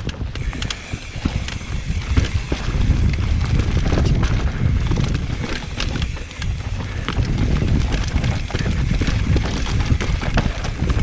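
Mountain bike rolling fast down a rocky, loose trail: a steady low rumble of wind buffeting the microphone, with frequent clicks and rattles from tyres over rocks and the bike's chain and frame clattering.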